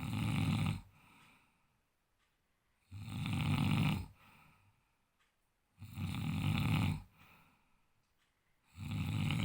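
A man snoring in his sleep: four loud snores about three seconds apart, each lasting about a second.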